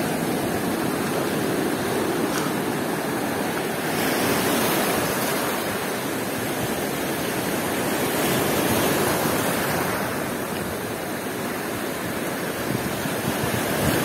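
Storm surf on a shingle and stone beach: a steady rush of breaking waves and foam washing over the stones, swelling gently twice.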